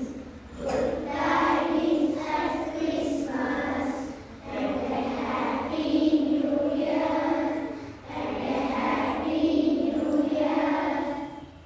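A group of children singing a song together in unison, in three phrases of about four seconds each, stopping sharply at the end.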